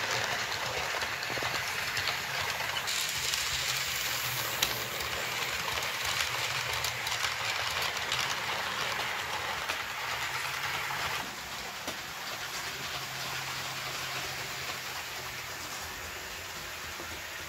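HO-scale model train, a Jouef 231 K model steam locomotive with blue coaches, running on its track: a steady rushing rattle of small metal wheels on the rails over a low motor hum. The sound drops about eleven seconds in and then slowly fades as the train moves away.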